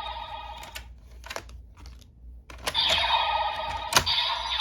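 Kamen Rider Gotchard toy transformation belt being operated with cards, giving sharp plastic clicks. A ringing electronic sound effect from the belt's speaker tails off early on, and a new one starts a little under three seconds in.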